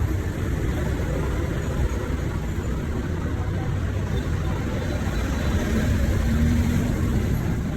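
A steady low rumble of motor-vehicle engine noise, with a faint hum that comes and goes between about five and seven seconds in.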